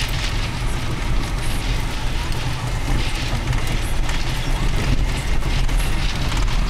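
Car driving on a rough gravel dirt road, heard from inside the cabin: a steady low rumble of tyres and engine, with occasional clicks and rattles.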